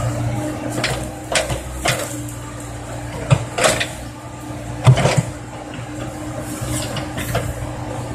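Komatsu PC70 excavator's engine running steadily under load while the bucket digs into the pond bank, with a string of sharp knocks and scrapes from the bucket and arm, the loudest about five seconds in.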